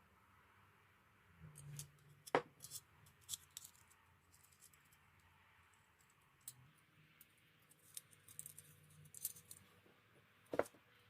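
Scattered light clicks and taps of small hard parts or tools being handled. Two sharper clicks stand out, about two seconds in and near the end.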